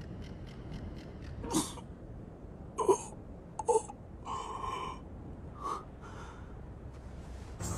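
A man's short gasps and strained grunts, a few separate sharp breaths a second or so apart, with one longer breathy rush near the middle, over a low steady background noise.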